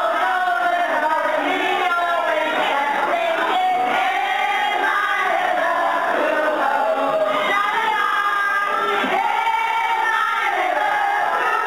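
A group of women singing together in chorus, long drawn-out notes with several voices at once.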